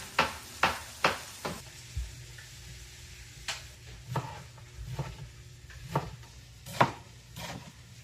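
A series of sharp taps and clicks, as of household objects being handled: quick and even, about two a second, at first, then sparser and irregular, over a faint low hum.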